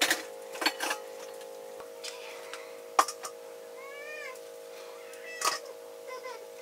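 A small animal mewing: a few short, high calls that rise and fall, about four seconds in and again more faintly near the end. Sharp knocks come at the start and a few times between, over a steady hum.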